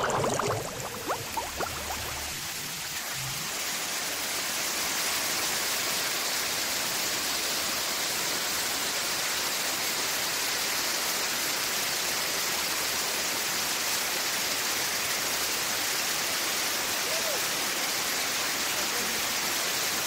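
Waterfall pouring down a rock face: a steady, even rush of falling water that builds over the first few seconds, after a few brief knocks at the very start.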